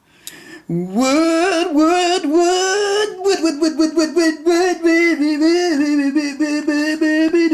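A solo voice singing a slow, unaccompanied melody, coming in about a second in with long held notes and wavering runs.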